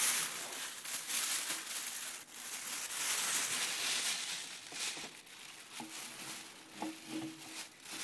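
Plastic bag crinkling and rustling as it is handled, with small clicks, loudest in the first half and quieter after that.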